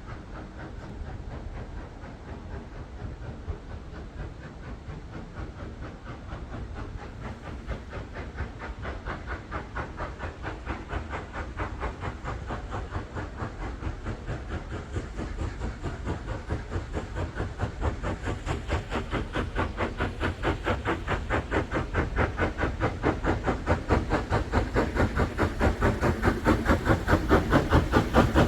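Steam locomotive working, its exhaust beats coming as a fast, even chuffing over steam hiss and growing steadily louder.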